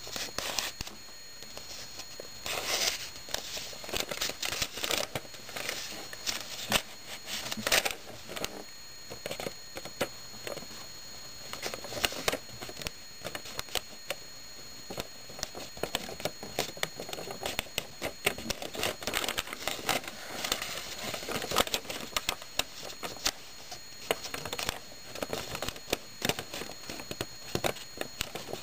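Paper rustling and crinkling by hand as square sheets are folded and creased into origami Sonobe units: irregular soft swishes and sharper crackles.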